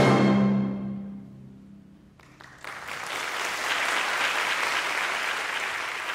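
The final held chord of a symphony orchestra dies away. The low notes linger longest and fade out about a second and a half in. After a brief hush, audience applause breaks out and carries on.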